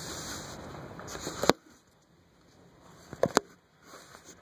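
Steady noise of rain and wind heard from indoors that cuts off abruptly with a loud click about one and a half seconds in. After that it is much quieter, with a few sharp clicks a little past three seconds in.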